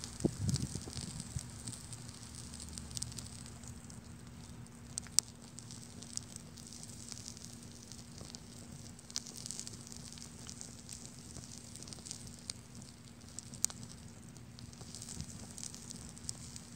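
A small fire of paper and cardboard burning, crackling with a steady hiss and scattered sharp pops, the loudest about five seconds in.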